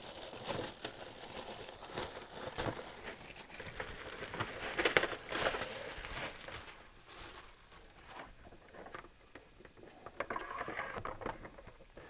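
Thin plastic bag crinkling and rustling as it is pulled off a ceramic tower heater, loudest about five seconds in and dying down after about seven seconds.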